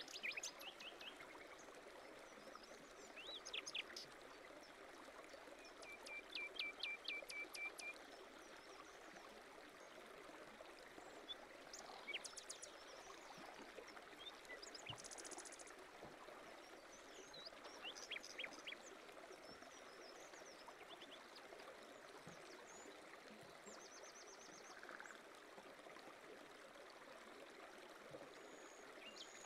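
Faint birds chirping, in short runs of quick repeated notes, over a steady rushing noise.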